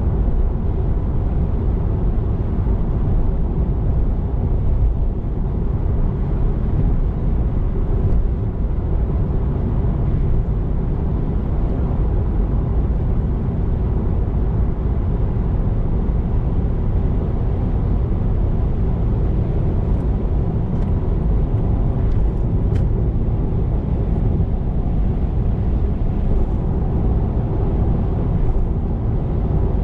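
Steady low rumble of a car's tyres and engine at highway cruising speed, heard from inside the cabin.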